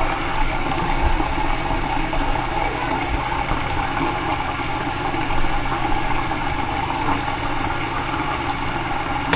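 Bathroom sink tap running steadily, water rushing into the basin.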